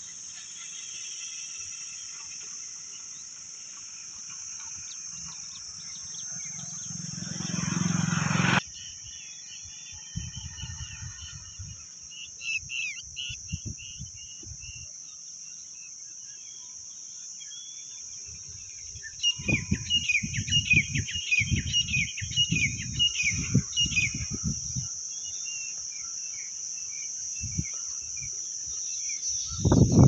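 A steady high-pitched insect drone throughout, with birds chirping in quick series about halfway through. A low rumble swells over the first eight seconds and cuts off suddenly, and gusty low rumbles, like wind on the microphone, come and go, growing loud at the very end.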